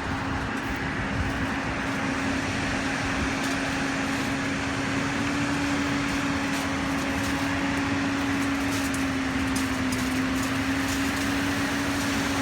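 Concrete pump truck running steadily, a constant mechanical drone with a steady hum, and a few faint ticks in the second half.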